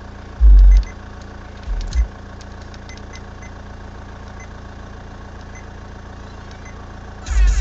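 Short, loud bursts of deep bass from two Kicker L7 15-inch subwoofers driven by a Kicker KX2500.1 amplifier, about half a second in, near two seconds and again near the end, as the head unit skips from track to track. A steady low rumble runs under them.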